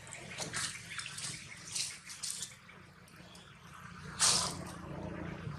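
Dry fallen leaves rustling and crackling in short bursts as monkeys shift about in the leaf litter, the loudest burst about four seconds in, over a steady low hum.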